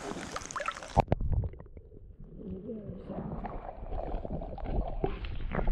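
Creek water sloshing and gurgling right at the microphone, with a sharp knock about a second in, after which the sound turns muffled.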